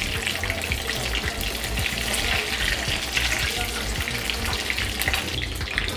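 Breaded chicken cutlets sizzling and crackling steadily in hot oil in a frying pan, with a wooden spatula moving through them as they are turned.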